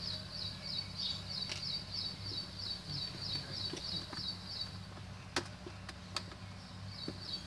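A high, thin chirping call repeated evenly about three times a second over a steady low hum, pausing for a couple of seconds near the end, during which two light clicks sound.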